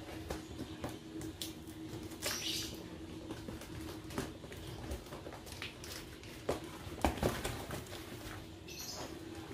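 Packing tape on a cardboard box being slit with a blade and pulled away: irregular scratches, clicks and short tearing rasps of tape and cardboard.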